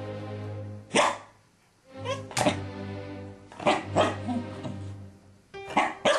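Scottish terrier barking, about six short sharp barks, some in quick pairs, over background music.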